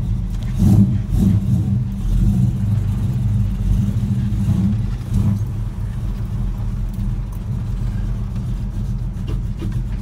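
Small-block Chevy V8 exhaust through Flowmaster Hushpower HP-2 mufflers, heard from inside the cab of a 1977 Chevy C10: a few short throttle swells about a second in, then steady running as the truck pulls away at low speed.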